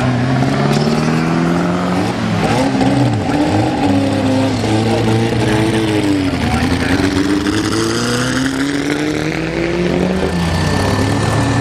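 Vintage racing car engines running hard on track, several at once, their pitch rising and falling over and over as they accelerate and change gear.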